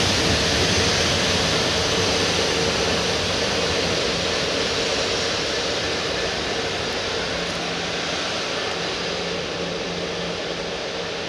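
A pair of Class 66 diesel-electric locomotives with two-stroke V12 engines moving away. Their steady engine hum and the rushing rail noise fade slowly as they recede.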